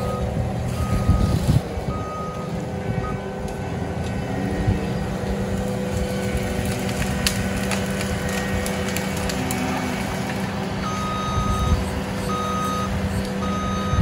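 Diesel engine of a Cat compact track loader running steadily as it works a tree over with its grapple. Its reversing alarm beeps about once a second at the start and again near the end, with a few sharp cracks about halfway through.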